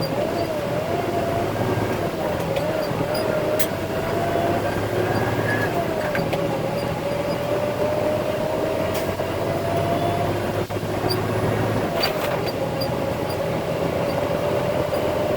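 Concrete mixer truck's diesel engine running steadily, with a whine that wavers in pitch for the first few seconds and then slowly climbs.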